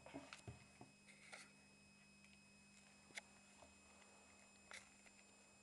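Faint scattered clicks and rustles from a pet rat being handled, bunched in the first second and a half, then single clicks twice more, over a low steady hum.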